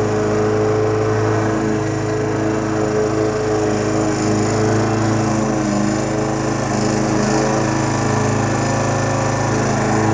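Walk-behind lawn mower's small engine running steadily as it is pushed across grass, its pitch shifting slightly now and then.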